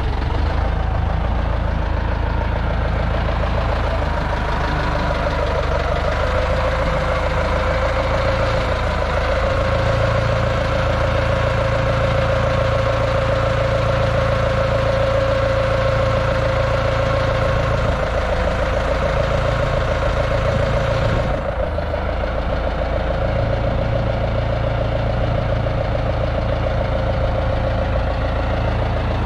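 Desta 3-tonne off-road diesel forklift engine running steadily, with a steady whine on top, and a brief dip about two-thirds of the way through.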